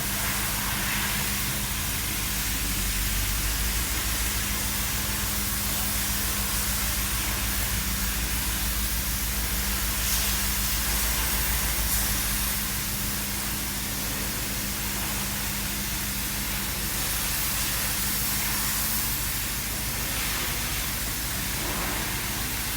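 BMW engine idling steadily, a car with stored combustion misfire faults, with a steady hiss over the engine note.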